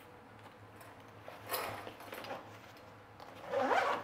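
A sling bag being handled while it is packed: a brief fabric rustle about one and a half seconds in, then a louder short zipper pull near the end.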